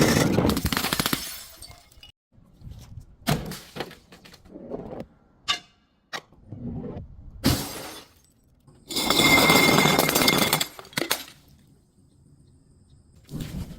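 Glass bottle breaking and being crushed: a series of separate crunching, shattering bursts. The longest and loudest comes about nine seconds in and lasts nearly two seconds, with a ringing tone through it.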